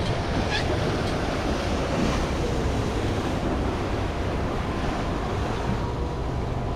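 Wind buffeting the microphone over the steady wash of sea waves against a fishing boat's hull.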